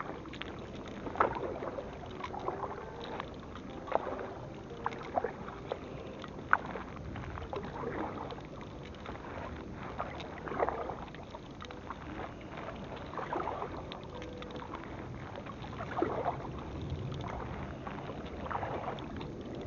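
Canoe paddling on the sea: paddle blades dipping and splashing in the water in short, irregular splashes over a steady wash of water.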